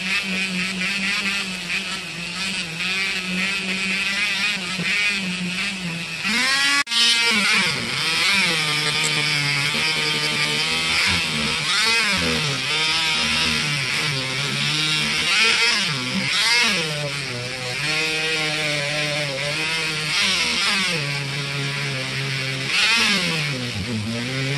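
Handheld rotary tool running with a small polishing wheel buffing a steel putty knife blade, its motor pitch sagging and rising again and again as the wheel is worked against the metal. A brief break about seven seconds in.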